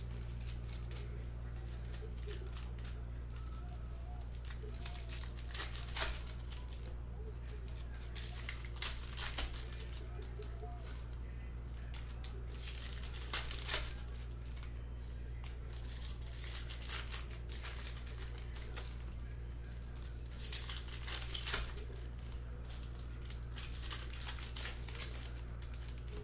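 Foil wrappers of Topps Chrome baseball card packs crinkling and tearing open in short bursts every few seconds as the packs are opened, over a steady low hum.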